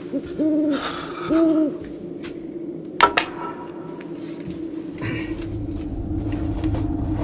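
An owl hoots twice, two short level notes about a second apart. A sharp click comes about three seconds in, and a low rumble builds from about five seconds in.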